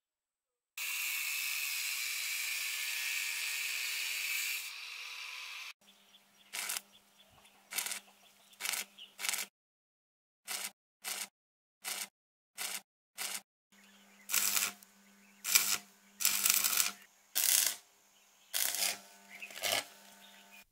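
A power tool cuts through square metal tubing with a steady, loud noise for about five seconds and stops abruptly. Then come a dozen or so short, sharp bursts of stick-welding arc as the tubing frame is tack-welded, over a low electrical hum between some of the welds.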